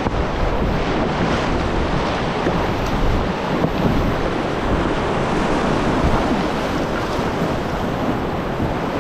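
Whitewater rapid rushing and splashing around an inflatable packraft as it runs through. The rush of churning water is steady and loud.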